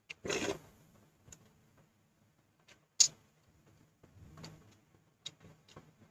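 Close-up eating sounds from a mouthful of rice off a plastic spoon and bites of pork chop. A noisy mouthful comes just after the start, a sharp click about three seconds in, and a softer bite with chewing a second later, with small clicks near the end.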